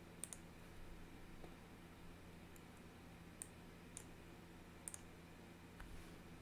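A handful of faint, sharp clicks, some in quick pairs, over near-silent room tone with a low steady hum.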